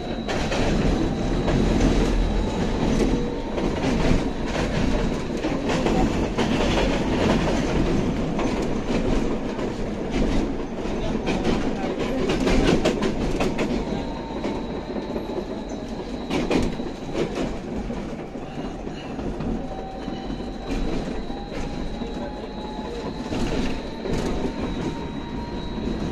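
Inside a BKM 802E low-floor tram running along the track: a steady rumble of wheels on rails with repeated clicks and clacks over the rail joints. Under it is a faint whine that sinks in pitch and later rises again.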